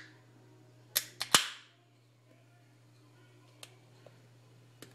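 Aluminium Coke can's pull tab clicking and cracking open with a short fizzing hiss about a second in, followed by a few faint ticks of fingers on the tab. The Coke has been chilled in the freezer, and the release of pressure turns it to slush.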